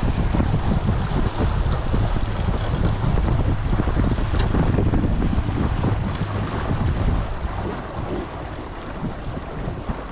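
Wind buffeting the microphone and water rushing along the hull of a Hobie Holder 14 sailboat under way. The rush eases noticeably near the end.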